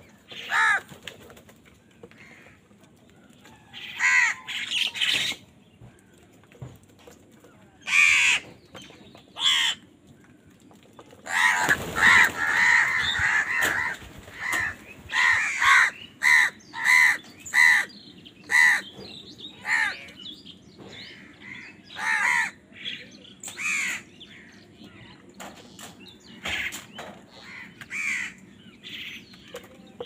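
House crows cawing while competing over food: scattered harsh caws, a dense burst of overlapping calls about twelve seconds in, then a quick run of caws a little over half a second apart, thinning out towards the end.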